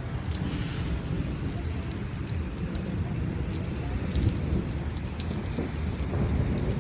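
Pea-sized hail and rain pelting down, many sharp little ticks of hailstones striking over a dense, steady rushing hiss.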